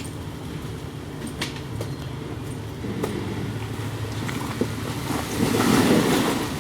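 Jeep Wrangler engine idling steadily on the trail, with a few small clicks and knocks. About five seconds in a louder rushing noise comes up over it.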